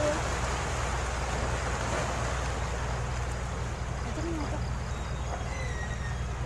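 Steady wash of sea water and wind on the microphone, with a low steady rumble underneath.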